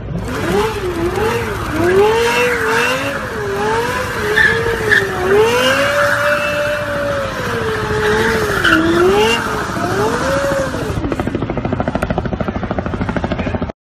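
Lexus LFA's V10 revving up and down again and again while the rear tyres spin and squeal through donuts. About eleven seconds in the revving stops and a fast pulsing engine sound remains until it cuts off sharply near the end.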